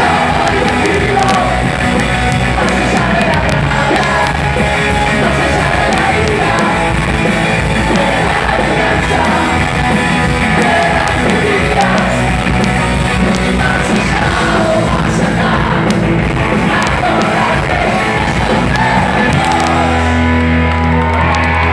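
A punk rock band playing live at full volume: shouted lead vocals over drums, bass and electric guitar. About two seconds from the end the cymbals stop and the band holds a low, ringing chord.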